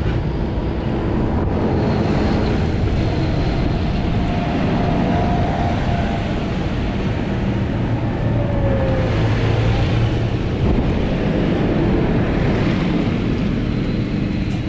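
Farm tractors, John Deeres among them, driving past one after another on a tarmac road: diesel engines running with a steady low note, with tyre noise.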